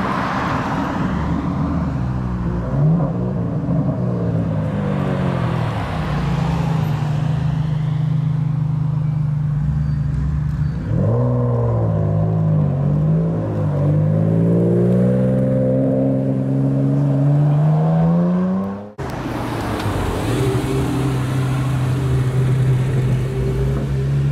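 Ferrari Enzo's V12 engine running at low revs, then revved about eleven seconds in and climbing steadily in pitch as it accelerates. After an abrupt cut near the end, another supercar engine runs steadily.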